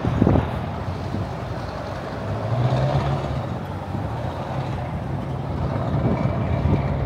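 Cars and pickup trucks driving past close by, engine hum and tyre noise swelling and fading as they pass, with a brief thump at the very start.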